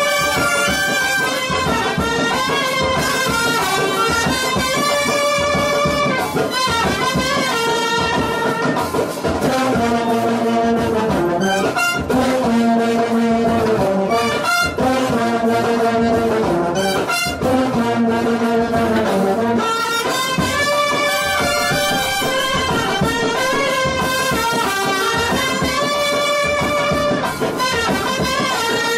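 Brass-led music: trumpet-like horns play a stepping melody over a steady percussion beat, without a break.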